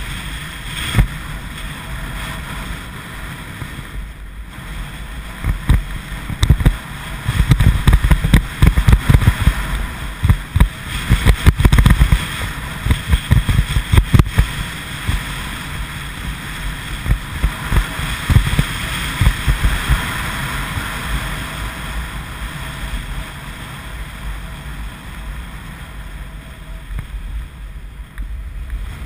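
Wind buffeting the microphone of an action camera moving fast downhill, in loud irregular low gusts and rumbles, over a steady hiss of the rider's edges scraping across packed snow. The buffeting is heaviest through the middle and eases near the end as the rider slows.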